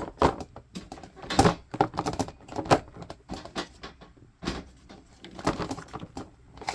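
Irregular taps, clicks and knocks of pop-it fidget toys being handled.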